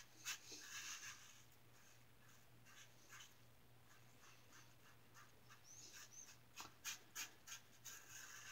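Faint, short scraping strokes of a 3D-printed injector razor with a Schick blade cutting stubble through shaving lather, coming in quick runs of several strokes.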